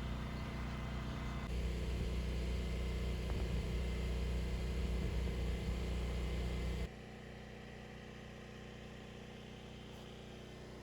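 Steady low engine rumble, as of a car running. It shifts suddenly about a second and a half in, then drops abruptly to a quieter hum about seven seconds in.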